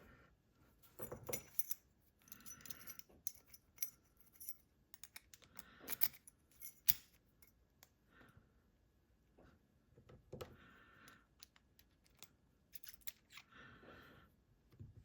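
Scattered light clicks and clinks of small metal lock parts and tools being handled as an ASSA 600 pin-tumbler lock is taken apart, with a few short rustles in between.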